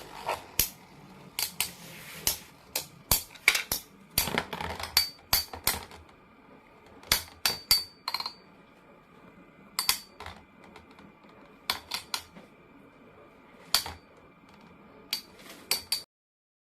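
Irregular clicks and light knocks of small hard pieces being handled, some with a short metallic ring. They come in clusters and stop abruptly near the end.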